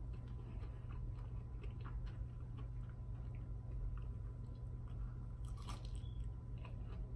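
Mouth sounds of a person chewing battered, fried cauliflower, with small crunches and wet clicks, then biting into a fresh piece about five and a half seconds in. A steady low hum runs underneath.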